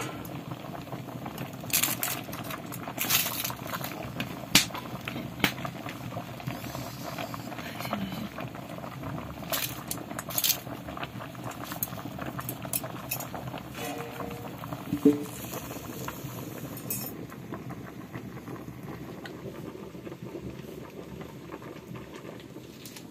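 A covered pot of potatoes boiling steadily over a wood fire. Sharp metal clinks and knocks of a flat utensil against the pot come every few seconds.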